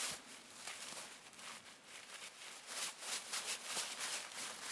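Fabric swishing and rustling in irregular strokes as a hammock's snakeskin sleeve is slid back off the hammock, with a quicker run of short swishes in the second half.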